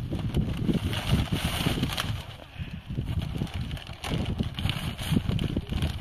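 Wind buffeting the microphone: an irregular, gusty low rumble.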